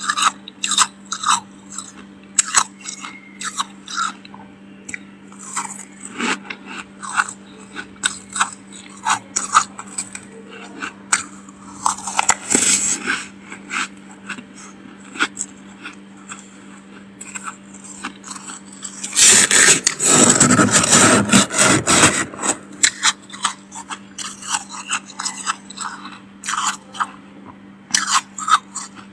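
A spoon scraping and scooping thick freezer frost: a run of short, crisp crunches, then a longer unbroken stretch of crunching about two-thirds of the way through.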